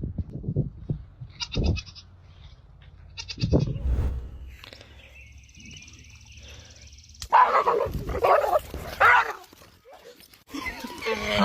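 Goats bleating, with a run of loud, rough bleats from about seven seconds in, and a couple of dull thuds earlier on.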